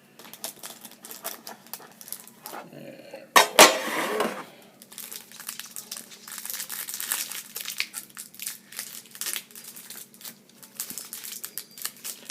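Plastic wrapping crinkling and crackling as it is handled and pulled at, with one loud knock about three and a half seconds in, while a trading-card tin is being opened.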